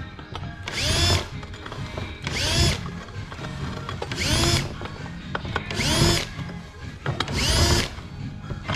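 Cordless drill drilling a row of holes through aluminium sheet metal: five short spin-ups, about one every second and a half, each a whine that rises and falls as the bit goes through.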